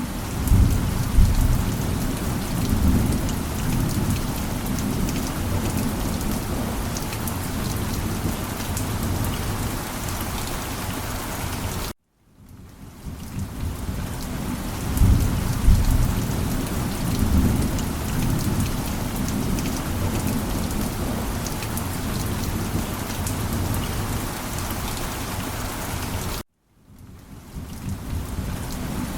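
Steady heavy rain with low rolling thunder rumbles. It cuts out to silence twice, about 12 seconds in and near the end, then fades back in, as a looped recording does.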